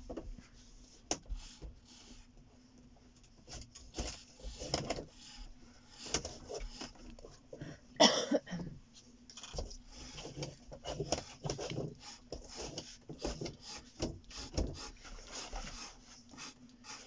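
Pencil scratching on drawing paper in many short, irregular strokes, with one louder brief scrape or knock about eight seconds in.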